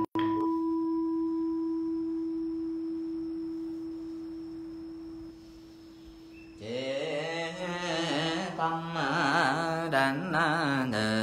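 A struck Buddhist temple bell ringing out with one clear, steady tone that slowly dies away over about six seconds. After that, voices take up the chant of Buddha names again.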